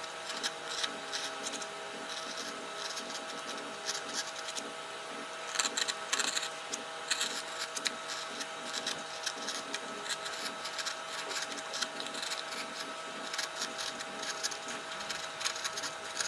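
A #11 3 mm gouge making short, irregular scraping cuts into the carved wood, incising fine hair lines in a beard, over a steady hum.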